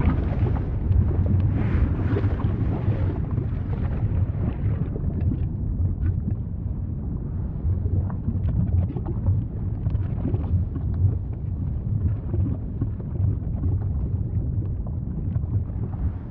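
Deep, steady rumble of an erupting volcano, with faint scattered crackles.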